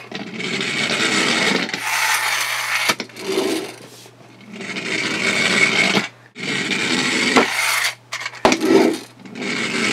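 Spring-wound pullback motor of a small plastic toy speedboat whirring as it runs across a tabletop, about four times in a row, each run lasting a couple of seconds with short pauses between.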